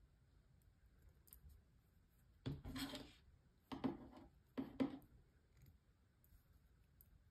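Fishing pliers and a pair of scissors being handled: three short scraping clicks of metal tools, starting about two and a half seconds in and a little under a second apart, the first the longest.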